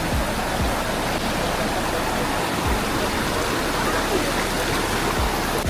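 Steady rush of river water tumbling over a waterfall, an even noise with no break.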